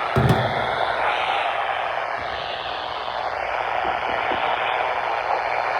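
Static from a weather radio receiver: a steady hiss with no clear voice, the NOAA Weather Radio broadcast lost under the noise. A short low thump comes just after the start.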